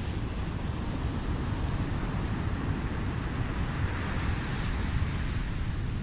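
Sea surf breaking and foaming over rocky shoreline boulders, a steady rushing wash with deep rumble underneath. A surge of foaming water swells about four seconds in. Wind buffets the microphone.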